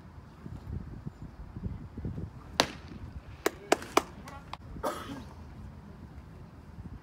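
A pitched baseball smacks into the catcher's mitt with one sharp pop about two and a half seconds in, followed by a few lighter clicks over the next two seconds.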